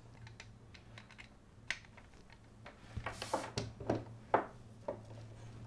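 Handling noise from a USB cable being plugged into the base of a USB condenser microphone and the mic being turned in gloved hands: a series of small clicks and taps with a brief rustle about three seconds in, over a low steady hum.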